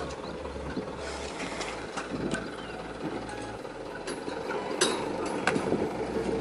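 Scattered sharp metallic knocks and clanks from the back of a horse truck as it is climbed and loaded, over a steady background hiss.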